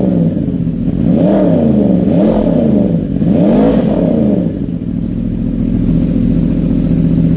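Yamaha R1 inline-four sport-bike engine through a freshly fitted Arrow slip-on exhaust canister, blipped three times in quick succession, each rev rising and falling back, then settling to a steady idle.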